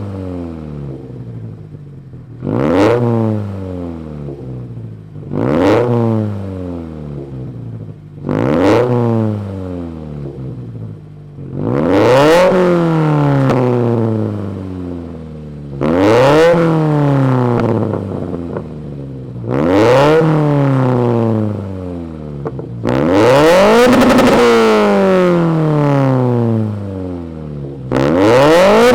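Turbocharged Scion FR-S flat-four engine free-revved through a Tomei 80R titanium cat-back exhaust. There are about nine quick blips, each rising sharply and falling back toward idle, and the later revs are held longer. The exhaust is one that sounds much deeper, without the raspy drone of the old axle-back delete.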